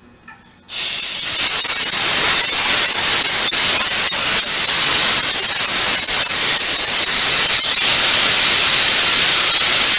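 Compressed air rushing out of the opened drain valve on a truck air brake system's secondary air reservoir. It is a loud, steady hiss that starts suddenly about a second in, as the tank is drained to test the dual air system.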